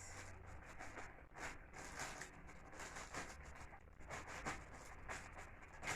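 Faint rustling with light taps and clicks scattered throughout, as of packaging and utensils being handled while preparing a cake mix.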